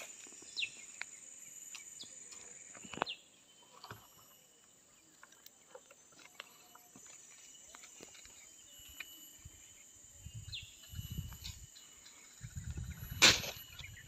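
Outdoor rural ambience: a steady high-pitched insect drone with scattered short bird chirps. Low rumbling on the microphone comes in near the end, along with one sharp knock, the loudest sound here.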